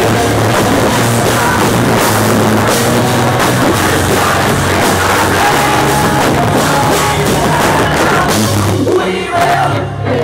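A live rock band playing loud, with sung vocals over drums and electric guitars, heard from within the crowd. Near the end the music drops away.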